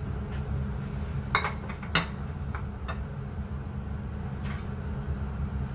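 A few light clinks and knocks of dishes being handled, the two clearest about a second and a half and two seconds in, over a steady low hum.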